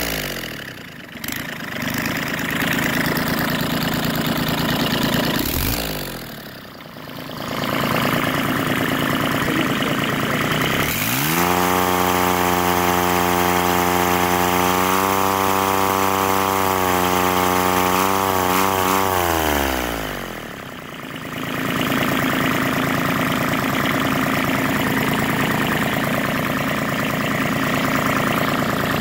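Kubota D722 three-cylinder diesel running after its injection pump repair; its sound drops away briefly three times. About 11 s in it is revved up to a steady high speed, held for about seven seconds, then falls back to idle. It answers the throttle and settles back without running away, the sign that the fuel rack and governor now work.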